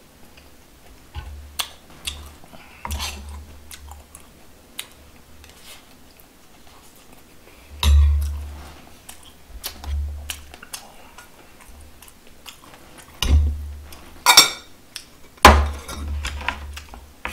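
Chewing with scattered clinks and scrapes of a metal spoon and chopsticks against stone bowls and dishes, and dull knocks on the table. The loudest clatter comes about eight seconds in and again in a quick run a few seconds before the end.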